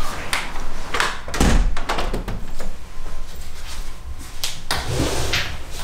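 A tall window being pulled shut: a solid thunk and the click of its handle being turned, among several other knocks and clicks.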